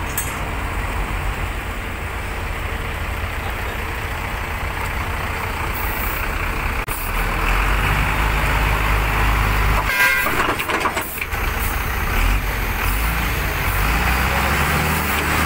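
Diesel truck engine running slowly under light load, getting louder about seven seconds in as the truck creeps forward. A short high-pitched tone cuts in briefly around ten seconds in.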